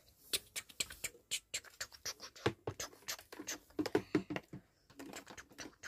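Irregular light taps, clicks and scrapes of plastic dolls being handled and knocked against furniture and the floor, mixed with handling noise.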